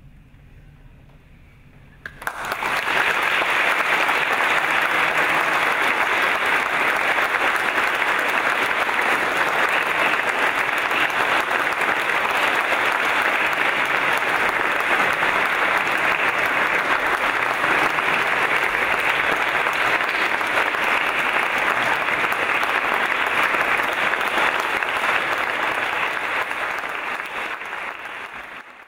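Audience applauding, breaking out about two seconds in and continuing steadily, then fading out near the end.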